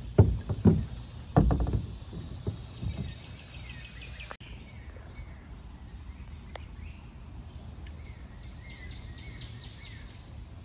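A few dull low thumps in the first three seconds. After a break, a songbird chirps in quick repeated notes over quiet outdoor background noise.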